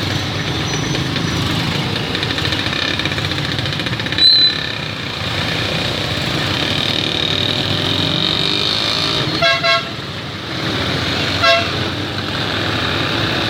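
Road traffic with a steady engine and road noise. Short horn beeps cut through it: two quick beeps about nine and a half seconds in and another about two seconds later, with a brief louder sound around four seconds in.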